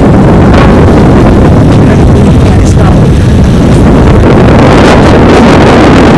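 Loud wind buffeting the microphone of a moving car, mixed with the car's running and road noise, as a steady rush.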